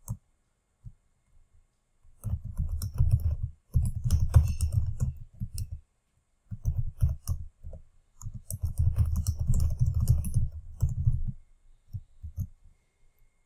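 Typing on a computer keyboard: two runs of rapid keystrokes with a short pause between them, and a few single clicks just before and after.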